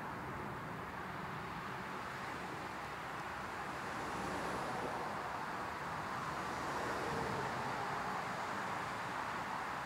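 Jet engines of a landing twin-engine narrow-body airliner: a steady rushing hiss that grows slightly louder about four seconds in as the plane comes over the runway.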